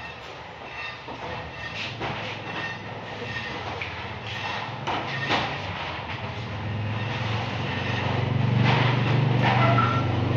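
A vehicle engine running with a low steady hum that grows louder from about halfway through, with a few knocks in the first half.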